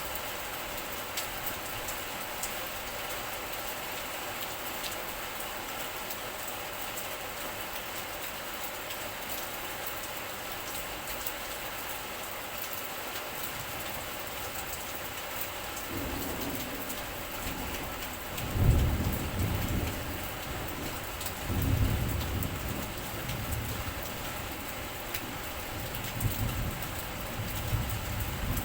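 Steady rain hiss throughout. From a little past halfway in, several deep low rumbles rise and fade over a second or two each; the loudest comes about two-thirds in.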